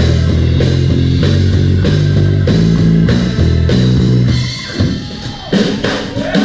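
Live rock band with drum kit, Hammond organ and bass playing a heavy riff, the low notes moving in steps with drum hits on the beats. The riff stops about four and a half seconds in, leaving scattered drum hits and gliding higher tones.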